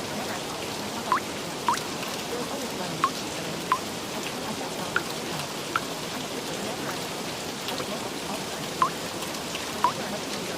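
Steady rain hiss with louder single drops plinking at irregular intervals, about eight in all.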